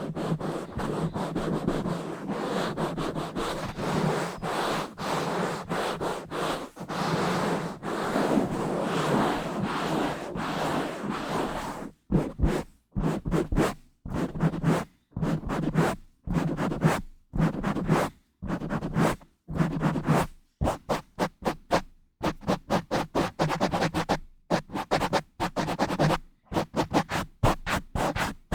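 Rubbing and scratching directly on a bare microphone grille. A continuous rubbing scratch for the first half gives way about midway to separate short scratching strokes with brief silences between them, quickening to several strokes a second toward the end.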